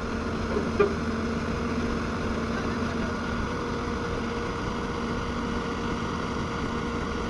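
Heavy machinery engine running steadily at a low idle-like hum, with a single brief knock about a second in.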